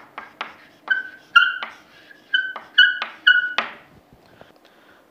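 Chalk writing on a blackboard: a quick run of sharp taps, many with a short high squeak, stopping about three and a half seconds in.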